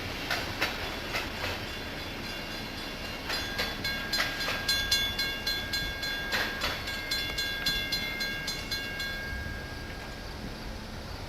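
Freight train cars rolling past, wheels clacking over rail joints in a quick run of clicks. A high ringing tone sounds over the clacking through the middle of the stretch, then fades out.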